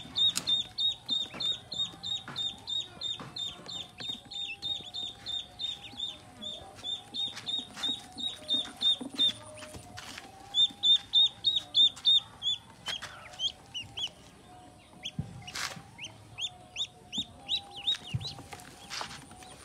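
A brood of ducklings peeping: quick, high-pitched peeps about four a second, thinning out to more scattered calls about two-thirds of the way in, with a couple of sharp knocks near the end.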